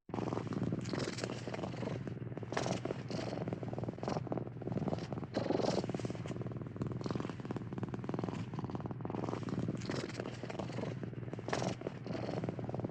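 Cat purring steadily.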